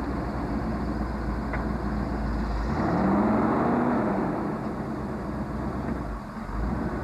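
Jeep CJ's Chevy 350 V8 engine running under load and revving once: the pitch climbs about three seconds in, then sags back down a second or so later.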